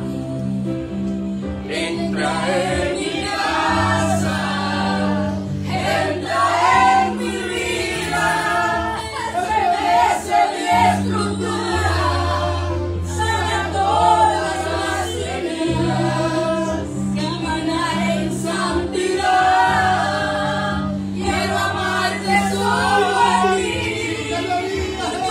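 Gospel worship singing: a woman sings into a microphone, with a man singing along, over held low accompaniment chords that change every few seconds. The voices come in about two seconds in.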